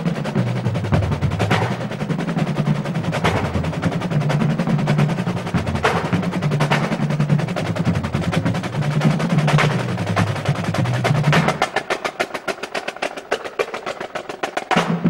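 A drum corps of snare drums and bass drums playing a fast marching drum piece, dense rapid stick strokes over a low drum beat with regular accented hits. About three quarters of the way through, the low drums drop out and only the quick snare strokes carry on, until a loud hit near the end brings the full corps back in.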